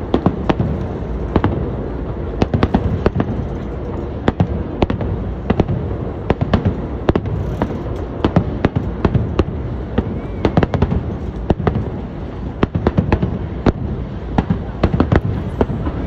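Aerial fireworks shells bursting in quick, irregular succession, many sharp cracks and booms over a steady din.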